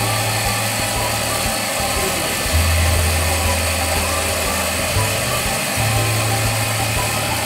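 Cotton candy machine running, its spinning head's motor giving a low hum that changes pitch a few times over a steady hiss.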